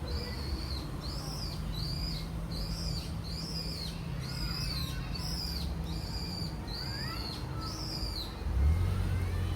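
Electronic bird-call tone of a Japanese audible pedestrian crossing signal, one high chirp repeated evenly about twice a second, which means the pedestrian light is green. Low traffic rumble runs underneath and swells near the end.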